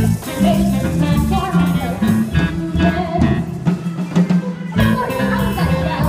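Live pit band playing an upbeat show tune with drum kit, with singing over it.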